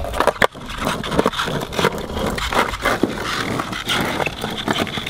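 Skateboard rolling and being pushed on a concrete sidewalk: a rough rolling rumble with many sharp clacks and scrapes as the board and wheels knock against the pavement.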